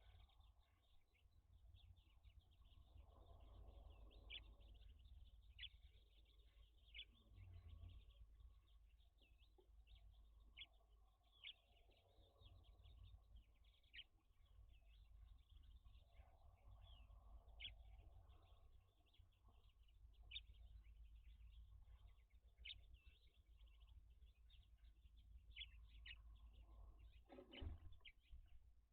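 Faint, scattered short high chirps of small birds, one every second or two, over a steady low hum.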